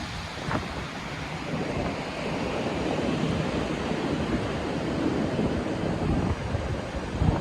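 High wind gusting through trees, with wind buffeting the microphone. It builds to its strongest around the middle and eases near the end.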